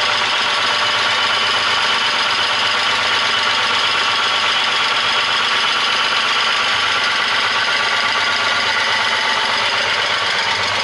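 VW Passat VR6 engine idling, heard close up with the bonnet open, with a loud clacking or ticking noise over the running. The owner suspects the hydraulic valve lifters, the timing chains having been checked and ruled out.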